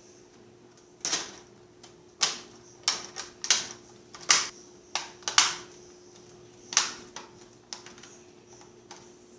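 Plastic screen bezel of a Toshiba Satellite laptop being pressed back onto the lid, its clips snapping into place with about ten sharp, irregular clicks.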